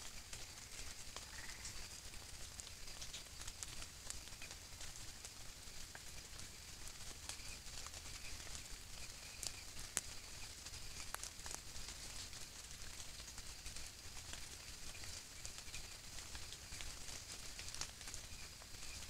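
Nine-banded armadillo rooting and scratching in dry leaf litter: scattered soft crackles and clicks, one sharper click about ten seconds in. Under it runs a steady high-pitched chirring of night insects.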